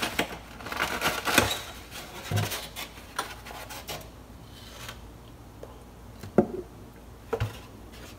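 Foam egg carton being handled and opened, with squeaky scraping and rubbing as the lid is pulled back and the eggs are reached for. Two sharp knocks come about a second apart near the end.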